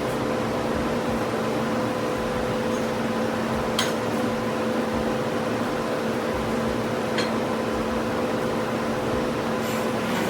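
Steady mechanical hum with a constant whine, like a fan or air conditioner running, with two faint clicks about four and seven seconds in.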